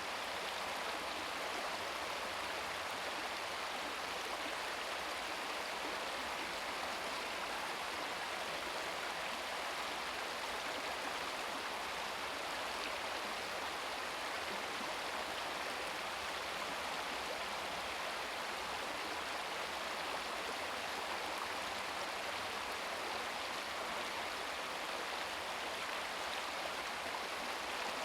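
A small brook babbling steadily, its water running over rocks in an even rush of splashing and trickling.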